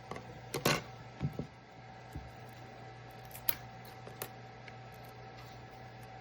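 A few sharp clicks and knocks, the loudest just under a second in, over a steady machine hum with a constant tone.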